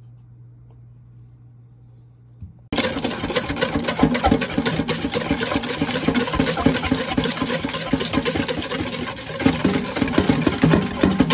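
Wire balloon whisk beating batter hard in a stainless steel bowl: a dense, fast rattle of wires scraping and clicking against the metal, which starts suddenly a little under three seconds in after a faint low hum.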